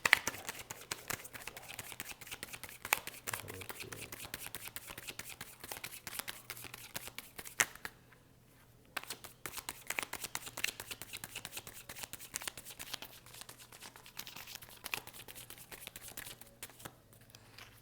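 A deck of tarot cards being shuffled by hand: a dense run of quick papery card flicks, with a pause of about a second a little past the middle before the shuffling goes on.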